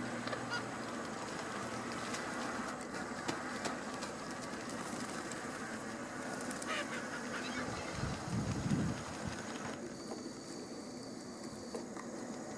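Steady outdoor background noise with a low rumble, a short deeper rumble about eight seconds in, and a thin high steady tone near the end.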